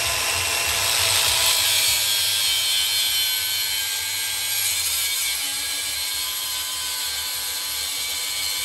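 Milwaukee angle grinder's disc grinding into a steel axle pivot tube, cutting a groove so grease can flow: a steady motor whine over a loud hissing grind. It is let off right at the end.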